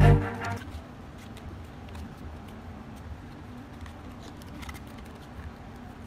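Background music cuts off at the start, then faint rustling and light taps of thin cardboard pieces being folded and handled by hand.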